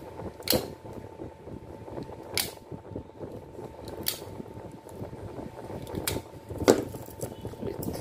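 Scattered clicks and knocks, about five in all, from a washing-machine motor stator and its lead wires being handled and turned over on a workbench, over a steady faint whine.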